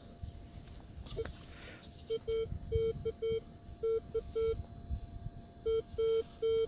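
Minelab X-Terra 305 metal detector giving short, same-pitched target beeps in quick groups as the coil is swept back and forth over a buried target, about eleven beeps from about two seconds in.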